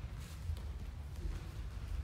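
Quiet room tone of a large hall: a steady low rumble with one faint soft knock about half a second in.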